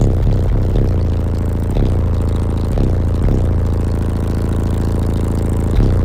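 Two Cosmos Audio 15-inch subwoofers in a truck's back-seat box playing bass-heavy music at high volume, with deep held bass notes and sharp hits about once a second.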